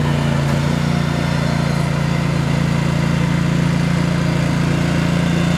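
Engine of a Toro ProCore 648 walk-behind aerator running steadily with a low hum; its note shifts slightly about a second in.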